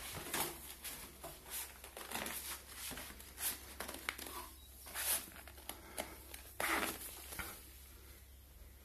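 Handling noise from a handheld camera being moved around: irregular rustling and crinkling with scattered clicks, over a faint steady low hum.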